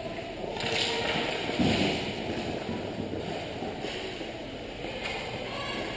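Ice hockey play close to the goal: skate blades scraping the ice and sticks clattering over the rink's steady background noise, with a dull knock about one and a half seconds in.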